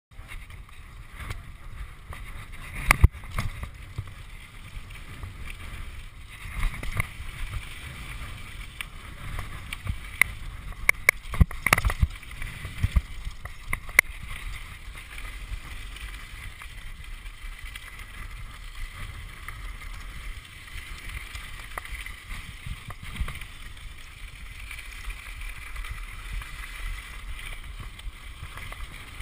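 Mountain bike descending a gravel trail: a steady rush of wind and tyre rumble over loose gravel, with sharp clatters and knocks from the bike over bumps, loudest about three seconds in and in a cluster around ten to fourteen seconds.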